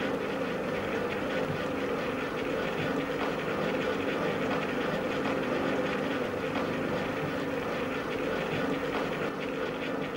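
Home-built gyroscopic 'anti-gravity' machine running: a steady mechanical whirring hum with a fast rattle over it.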